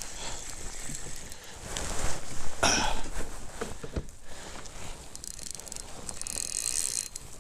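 Fishing reel being cranked to bring in a hooked fish, a steady mechanical ratcheting whirr, with a louder noisy burst about two and a half seconds in.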